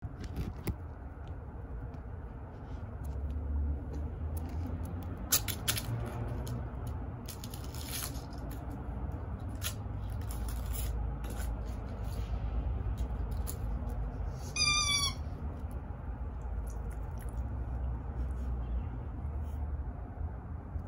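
A cat gives one short, high meow about fifteen seconds in. Scattered light clicks and scrapes sound over a steady low outdoor rumble.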